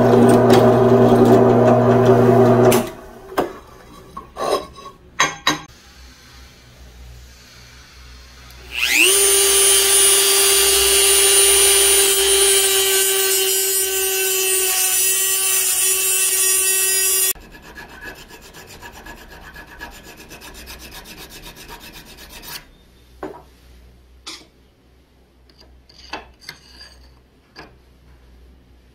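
Drill press running as it bores through steel, cutting off about three seconds in. After a few clicks, a handheld rotary tool spins up to a steady high whine and cuts steel with a cut-off wheel for about eight seconds, then stops suddenly. A hand file then rasps in short strokes on steel held in a vise.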